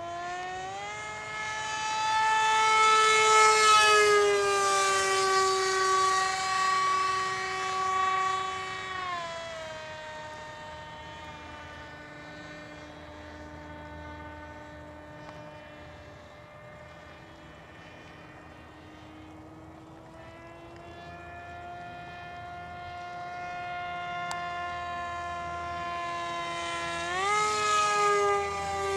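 Scratch-built RC model airplane's motor and propeller running in flight, a steady whine whose pitch changes with throttle. It steps up about half a second in, drops back around nine seconds, rises again from about twenty seconds and steps up near the end. It is loudest early on and again near the end as the plane passes close overhead.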